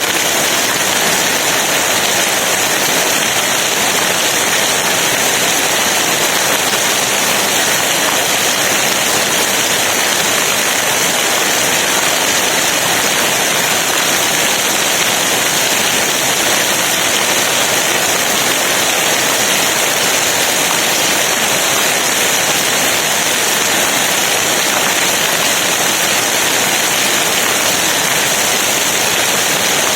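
Steady rain falling, a dense, even hiss with no single drops or other events standing out.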